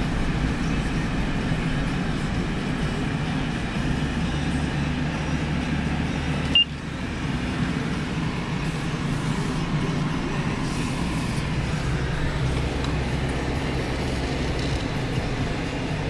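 Steady low rumble of road and engine noise heard from inside a moving car. A single short, sharp click about six and a half seconds in.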